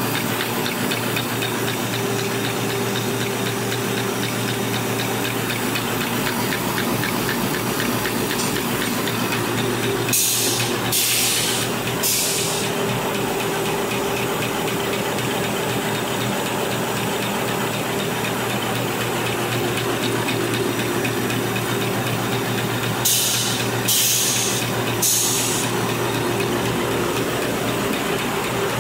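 A 1/6-fold dispenser napkin making machine running steadily, with a constant hum and a fine, rapid mechanical clatter. Twice, about a third of the way in and again near the end, three short hisses come one after another, about a second apart.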